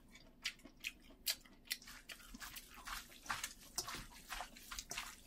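Hands mixing and squeezing seasoned, blanched butterbur greens in a stainless-steel bowl: soft, wet squishes and little clicks, irregular and a few a second.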